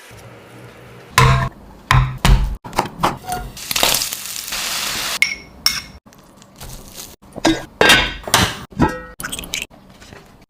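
Kitchen cooking sounds: dishes and utensils clinking and knocking in a quick uneven series, with a brief hiss about four seconds in.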